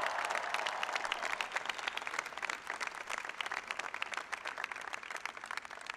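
Crowd applauding: many overlapping hand claps that fade toward the end.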